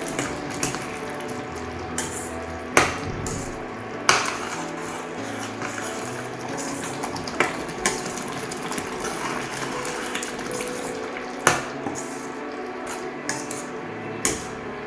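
A spoon stirring thick chicken gravy in a kadai, scraping, with a few sharp clinks against the pan.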